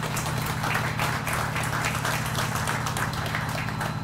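Audience applauding, many quick overlapping claps, over a steady low engine hum.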